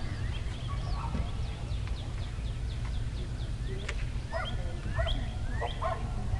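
Birds calling: a quick run of short, falling chirps, about four a second, then a few louder calls near the end, over a steady low rumble.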